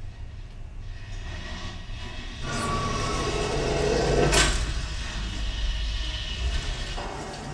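A low rumble that swells about two and a half seconds in and peaks with a sharp rushing swish a little after four seconds, then eases off.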